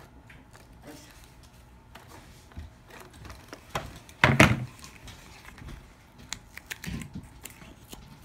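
Cardstock being handled on a wooden table: scattered light taps and rustles, with a louder thump about four seconds in as a hand presses down on the card, and a softer thump near seven seconds.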